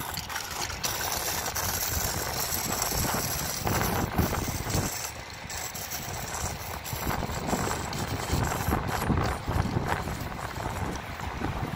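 Wind buffeting an outdoor phone microphone: a steady, rumbling rush with a few brief louder gusts.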